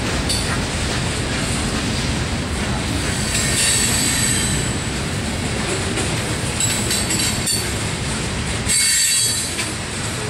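Freight train boxcars rolling past on steel rails: a steady rumble of wheels on track, with high-pitched wheel squeal coming and going.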